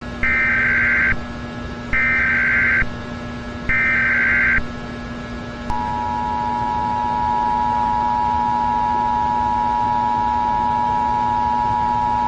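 Emergency Alert System alarm: three short bursts of the warbling SAME header data tones, each just under a second long and about two seconds apart, then the steady two-tone EAS attention signal, starting about six seconds in, over a low constant hum.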